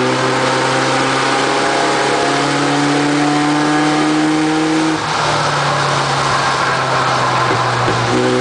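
Engines of several light-truck race trucks running hard together as the pack laps the oval. One engine note climbs slowly in pitch and breaks off about five seconds in, as the trucks come off the throttle.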